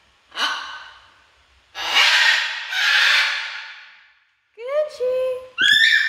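Blue-and-gold macaw making breathy, sigh-like huffs, then a quick run of short pitched calls that rise in pitch about five seconds in.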